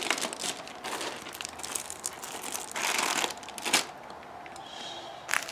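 Clear plastic bags around stacks of sport-stacking cups crinkling as they are handled and set down, with the loudest crinkling about three seconds in, then quieter.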